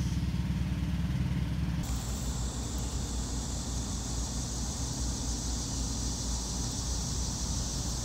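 Outdoor ambience: a steady low mechanical hum, joined about two seconds in by a steady high-pitched chorus of insects.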